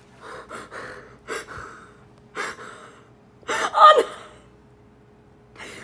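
Five short breathy, gasp-like vocal calls. The loudest, about three and a half seconds in, has a pitched part that falls.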